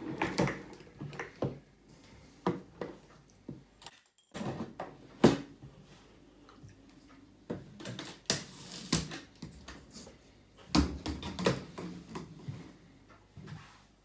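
Scattered knocks and clacks on a tiled floor as a Miele C3 canister vacuum cleaner, switched off, is moved, its hose handled and the body set down, with footsteps in wedge-heeled sandals. The knocks are irregular, with the loudest about five seconds in and a cluster near eleven seconds.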